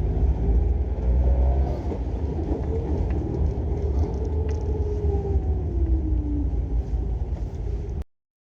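Suzuki Jimny Sierra's four-cylinder engine running through a motorcycle silencer fitted to its exhaust: a deep rumble whose note rises and then slides down in pitch around the middle. The sound cuts off suddenly near the end.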